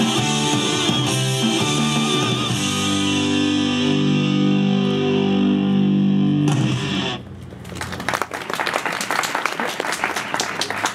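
Rock-styled pop song with electric guitar playing to its final chord, ending about seven seconds in. Then comes audience applause, a dense patter of clapping.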